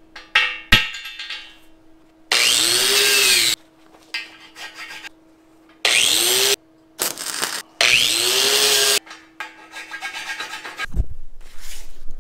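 Hand-held angle grinder cleaning up a fresh weld on steel tubing in four bursts of about a second each, its pitch rising and falling as it bears on the metal. Before it, a few light scrapes and a sharp click of a hand tool on the weld.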